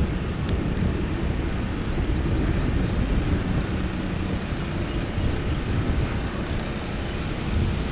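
Steady low rumble of an aerial tramway car running along its track ropes, with wind buffeting the microphone.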